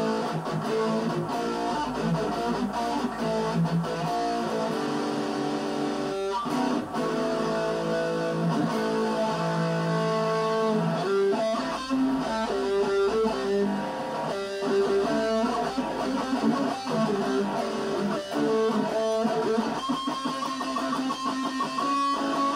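Electric guitar playing a melody of sustained single notes, with sharp picked attacks between them.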